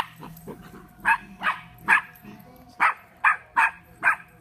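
Puppies yapping during rough play, about seven short, high barks in quick succession.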